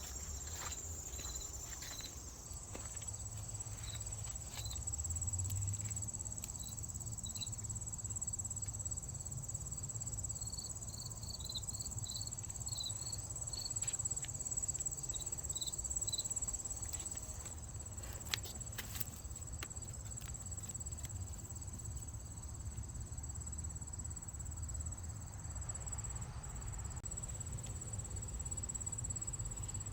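Insects trilling steadily in a high, unbroken chorus, with a run of short, higher chirps through the first half. Underneath there is a low rumble and a few scattered clicks.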